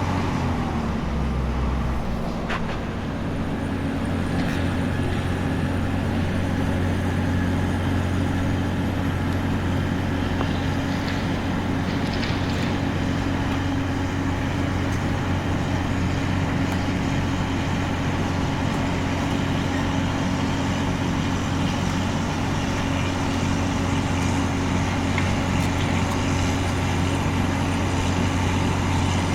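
An engine running steadily: a deep, even drone that shifts a little in pitch in the first few seconds and then holds.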